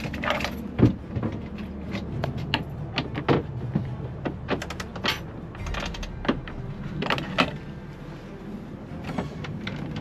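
Scattered clicks, knocks and clatters of hands handling a sailboat's deck hardware: a cockpit locker latch and a winch handle at the winch. A steady low rumble runs underneath.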